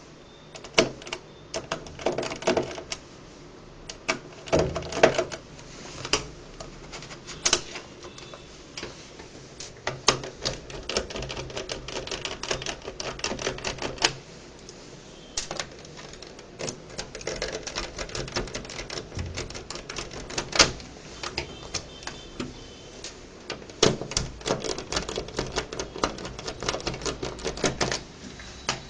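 Screwdriver turning small screws out of a laptop's plastic LCD bezel: rapid, irregular clicking of the bit in the screw heads and against the plastic, with a few louder knocks from handling the panel.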